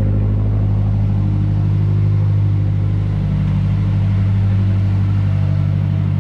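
Mazdaspeed 3's turbocharged 2.3-litre four-cylinder engine idling steadily, just started after sitting for a couple of days.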